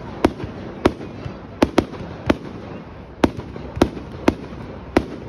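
Fireworks going off: about nine sharp bangs at uneven intervals, some in quick pairs, over a steady background noise.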